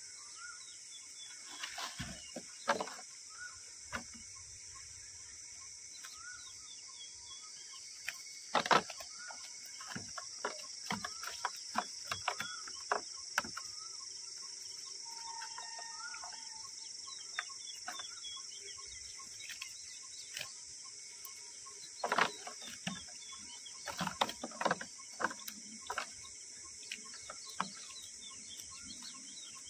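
Birds chirping and calling over a steady high-pitched hiss, with scattered sharp knocks and taps, the loudest about 9 seconds and 22 seconds in.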